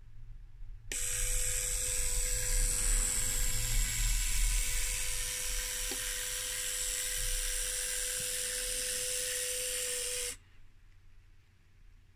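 Small H0f-scale model locomotive's motor and gearing running: a steady high hiss with a thin whine, switching on suddenly about a second in and cutting off sharply near the end as the train stops.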